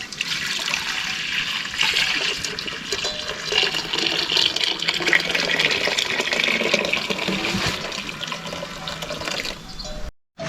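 A steady stream of liquid pouring and splashing, cut off abruptly near the end.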